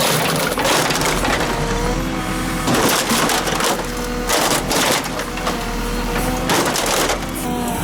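Old washing machines' sheet-metal bodies crunching and crumpling under a JCB 3CX backhoe loader's bucket in about four loud bursts, over the steady running of the machine's diesel engine.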